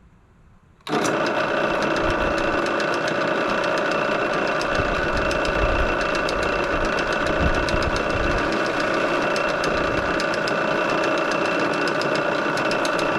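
Drill press running at about 850–950 RPM with a 7/8-inch bit, boring into the base plate of a jig. It starts about a second in and runs steadily, with a fine crackle of cutting over the motor's hum.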